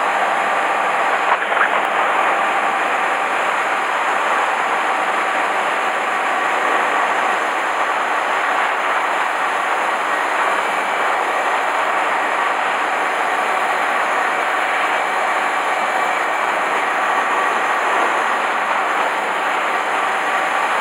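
Honda Hornet 250 motorcycle riding at a steady speed, heard from on the bike: an even rushing noise with a faint, level engine note that holds the same pitch throughout. A couple of short knocks sound about a second and a half in.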